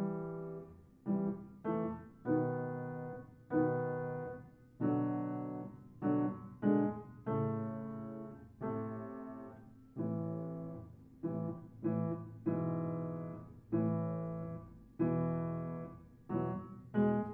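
Slow background piano music: chords struck one after another, roughly one a second, each dying away before the next.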